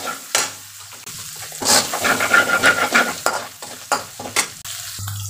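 Steel spatula scraping and stirring chopped onions in oil in a metal kadhai, the oil sizzling over a high flame. There is a quick run of scraping strokes, busiest and loudest about two to three seconds in.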